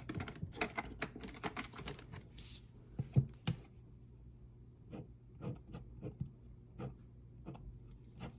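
A run of small clicks and taps as a pen and a pad of sticky notes are handled and set down, with one louder knock about three seconds in. Then a fine-tip pen scratches across the sticky-note pad in short separate strokes as a word and a few lines are written.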